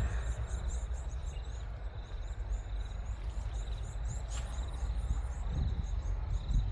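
Outdoor farmland ambience: insects trill in pulses with rapid high chirping over a low rumble on the microphone, and one sharp click about four seconds in.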